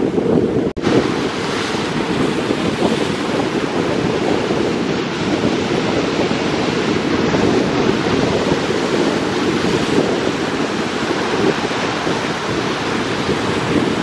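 Surf breaking and washing up the beach in a steady rush, with wind rumbling on the microphone.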